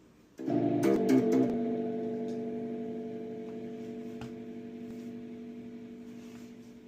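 Freshly restrung Epiphone SG Junior electric guitar strummed a few quick times about half a second in, then a chord left ringing and slowly dying away while it is being tuned.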